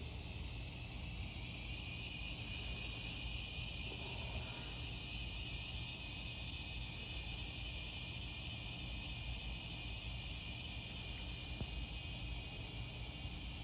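Steady, high-pitched insect chorus chirring without a break, with a faint low rumble underneath.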